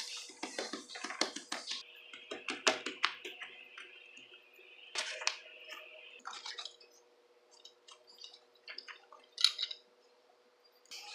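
Irregular clicks, taps and short rustles of homemade fidget toys and notebook paper being handled close to the microphone, over a faint steady hum. The sharpest clicks come a little under 3 seconds in and again near the end.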